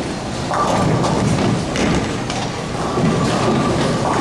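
Bowling alley rumble: bowling balls rolling down wooden lanes with knocks and clatter of pins, and a thin steady tone that comes in about half a second in.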